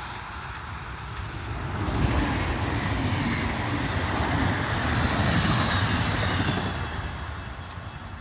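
DB Class 425 electric multiple unit passing by: its rumble of running and wheel noise swells about two seconds in, holds for several seconds and fades away near the end.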